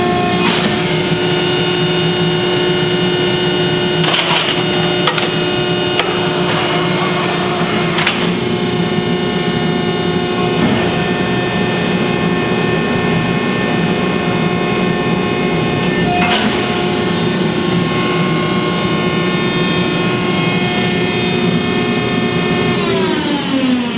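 Harris HRB-1C baler's motor and hydraulic pump running with a steady whine and hum, with a few sharp clunks. Near the end it is shut off, and the whine falls in pitch as the motor spins down.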